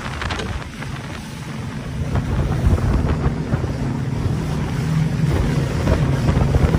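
Motorboat engine running steadily, with wind buffeting the microphone and water rushing past the hull.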